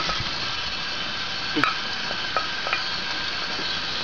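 Kitchen faucet running, its water splashing onto drained macaroni noodles in a plastic colander in a stainless steel sink. A few light knocks come as a spoon scrapes the last noodles out of the pot.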